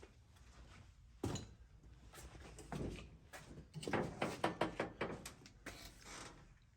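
Knocks on sheet metal: one sharp knock about a second in, then a quick run of taps some four seconds in, as a hammer works a floor pan panel straight.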